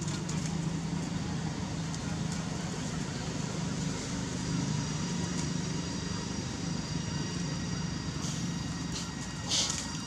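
Steady low hum of a running engine, like nearby motor traffic, under a constant background noise. A short hissy burst comes just before the end.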